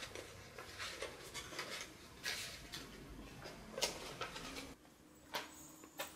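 Faint, scattered rustles and soft taps of a paper card being handled and lowered, with a few slightly louder rustles about two, four and five seconds in.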